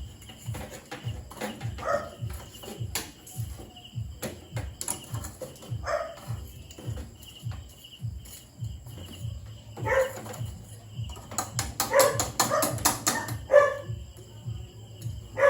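Belgian Malinois barking now and then, single barks a few seconds apart, then a quick run of barks near the end.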